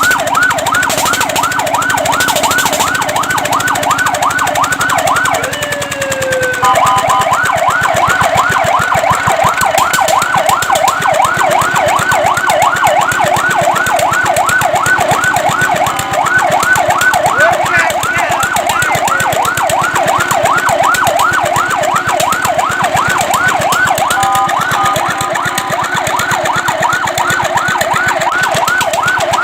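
Fire truck siren sounding a rapid yelp: its pitch sweeps up and down several times a second. The pattern changes briefly about six seconds in and again around 24 seconds, then returns to the yelp.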